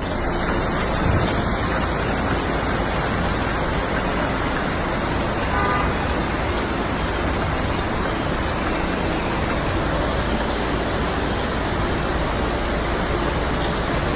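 Steady, loud rushing noise of water, with a brief faint tone about halfway through.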